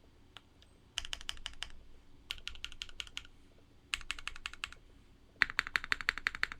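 Typing on an Adamas mechanical keyboard with Cherry Hyperglide Black linear switches: short bursts of keystrokes with pauses between, then a faster, louder run of keystrokes near the end.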